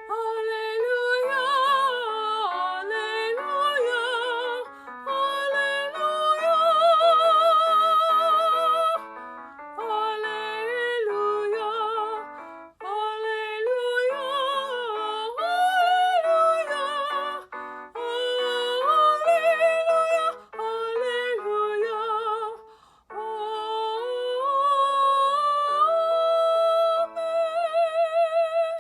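A woman singing in a classical, operatic style with vibrato over an instrumental accompaniment. She sings in several phrases with short breaths between them.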